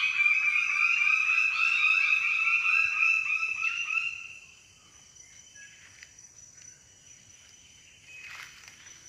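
A bird-of-paradise giving a loud, fast run of repeated calls that stops about four seconds in. Under it a faint, steady, high insect drone carries on, with a soft rustle near the end.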